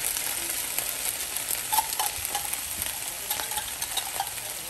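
Canned mushrooms frying in melted butter in a nonstick skillet, sizzling steadily with scattered small crackles and pops.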